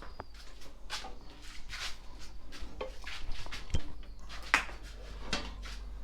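Irregular clicks, knocks and rustles of things being handled, with a sharper click about four and a half seconds in, over a steady low hum.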